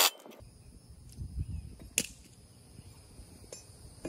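Pneumatic impact wrench giving one brief burst as the mower blade bolt is run down tight, followed by a single sharp click about two seconds in.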